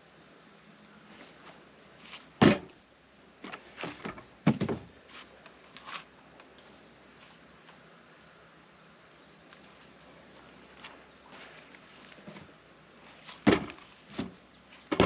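A few sharp knocks and some rubbing as a small mower tire, its bead soaped with dish soap, is handled and pressed onto its rim on a manual tire changer, loudest about two and a half seconds in and again near the end. A steady high insect chirring carries on underneath.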